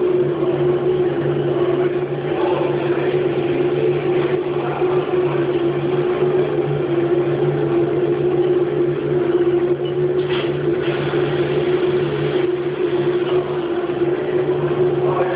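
Haas CNC machine running steadily: a constant machine hum with a low drone and a higher steady tone over a hiss, and a brief sharper noise about ten seconds in.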